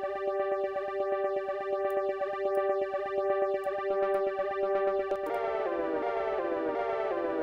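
A sustained synthesizer note played through Ableton Live's Flanger effect, with a fast pulsing shimmer and slow sweeping comb-filter swirls. About five seconds in the effect setting changes, and the tone turns into repeated falling pitch swoops, roughly one every 0.7 s.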